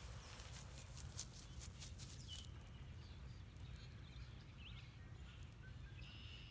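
Footsteps rustling through dry grass and clover for the first two and a half seconds or so, then stopping. Faint bird chirps follow in the background over a low steady outdoor rumble.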